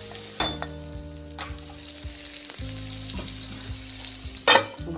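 Pointed gourds (potol) sizzling as they shallow-fry in oil in a kadai, with a metal spatula scraping and knocking against the pan a few times, the loudest knock near the end.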